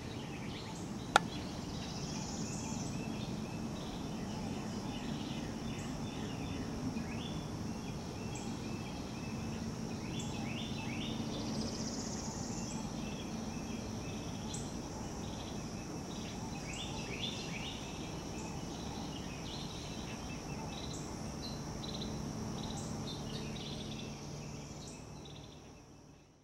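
Outdoor ambience: birds chirping again and again and a steady high insect drone that swells twice, over a steady low rush. One sharp click about a second in, and the sound fades out at the end.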